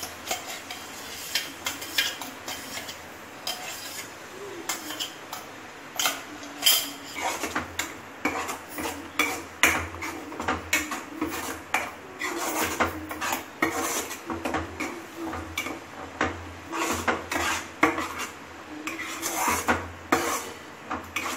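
Steel spoon scraping and clinking against a metal kadhai while stirring tomato puree into hot spiced oil, the strokes growing quicker and louder after about six seconds, over a faint sizzle from the pan.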